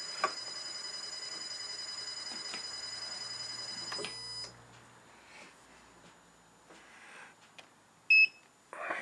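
Small metal lathe running with a steady high motor whine, switched off about four seconds in as the spindle coasts down. Near the end, a short, loud electronic beep.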